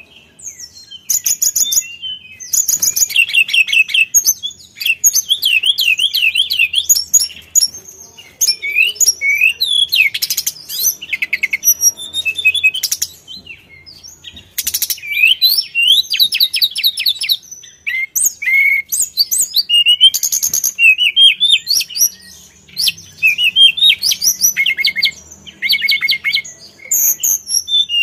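Hill blue flycatcher singing on and on: a varied, loud song of rapid trills, sweeping whistles and quick runs of repeated notes, phrase after phrase with only short pauses.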